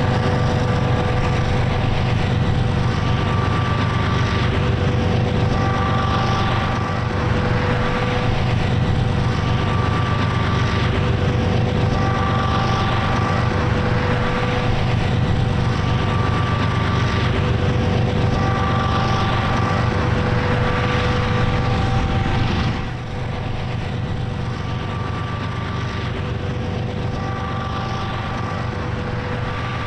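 Diesel locomotives of a freight train going by: a loud, steady low engine drone with a few higher steady tones that cut in and out about every two seconds. The sound drops noticeably about three-quarters of the way through.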